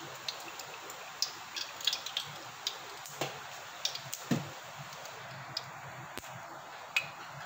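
Cooking oil poured into an aluminium kadai at the start, then a steady faint hiss with scattered small ticks and crackles as the oil heats in the pan.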